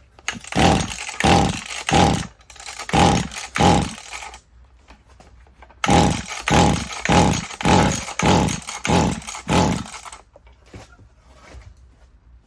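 Mantis tiller's small two-stroke engine being pull-started by its recoil rope: two runs of quick pulls, about five and then about seven, each a whirring crank that never catches. The engine turns over on fuel sprayed into the intake but does not fire.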